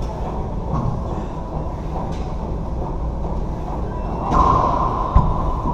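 A racquetball serve in an enclosed court: a couple of faint ball bounces over a steady hum, then about four seconds in a louder hit that echoes off the walls, and a single sharp smack of the ball about a second later.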